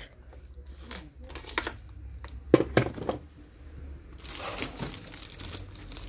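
Clear plastic packaging crinkling and rustling as wrapped shop items are handled. Scattered clicks and two sharp knocks come around the middle, then a longer rustle near the end.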